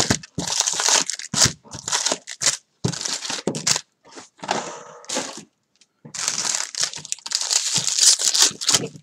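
Baseball card pack wrappers crinkling and tearing as packs are pulled from the box and one is ripped open, in irregular bursts with a short lull a little past the middle.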